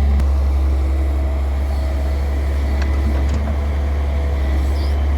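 Heavy diesel engine running steadily with a deep, even drone.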